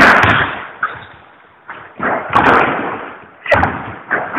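Repeated loud bangs, roughly one a second, each dying away over about a second.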